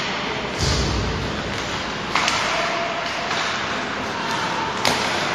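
Ice hockey play in an echoing rink: a few sharp clacks of sticks and puck, a deeper thud about half a second in, and a steady scrape and hiss of skates on the ice between them.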